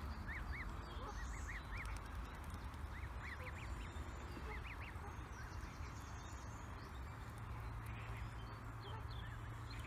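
Canada goose goslings peeping: short, high-pitched rising-and-falling peeps in quick runs, thinning out after about five seconds.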